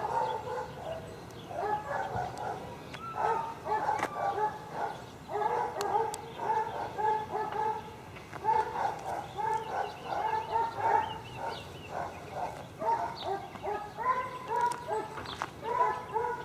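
Several coonhounds barking without letup, one bark after another and overlapping, with hardly a pause.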